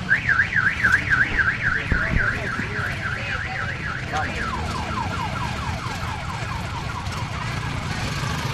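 Electronic siren yelping, its pitch rising and falling about three times a second, then about four seconds in switching to a fainter, lower run of quick falling sweeps. Underneath is the low running of motorcycle engines pulling away.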